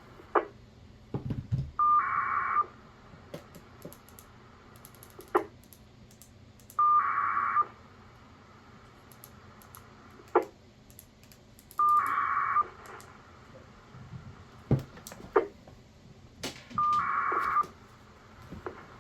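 Scanner radio receiving a county outdoor-warning-siren encoder's activation tone string over and over, four times about five seconds apart. Each is a brief steady beep followed by a quick burst of touch-tone-style tones, with a click from the radio before each one. The encoder is stuck re-sending its siren activation string.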